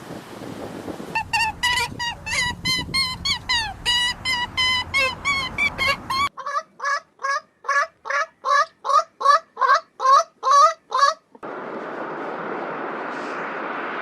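Bird calls repeated rapidly, about three a second, in two runs separated by an abrupt cut, the second run louder and lower; near the end they give way to a steady hiss like wind noise.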